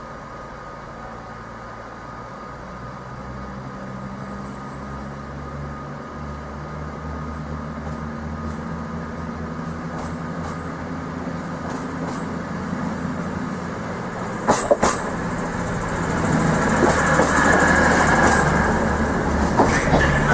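CrossCountry Voyager diesel multiple unit approaching and running in close past the platform. Its underfloor diesel engines give a steady low hum that grows steadily louder, and a rushing rumble of wheels swells in the last few seconds. Two sharp clicks come about three-quarters of the way through.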